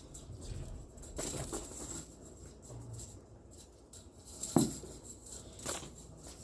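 Scattered light knocks and rustling, with one louder thump about four and a half seconds in.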